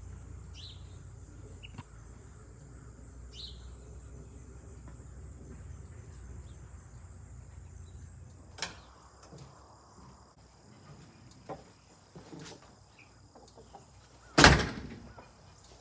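Quiet outdoor farm ambience: a few short bird chirps over a steady high insect drone, with a sharp click partway through and a loud thump near the end.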